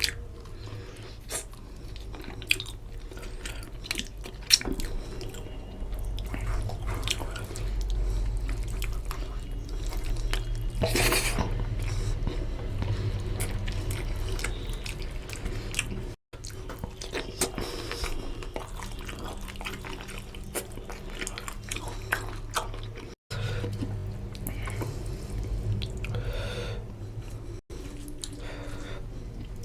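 Wet chewing and mouth sounds of a person eating rice with oily fish curry, with scattered small clicks and smacks over a steady low hum.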